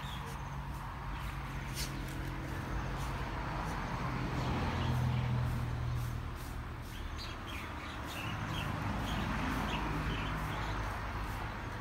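Small birds chirping in short, scattered calls, most of them in the second half, over a steady low hum like a distant motor or traffic that swells for a couple of seconds around the middle.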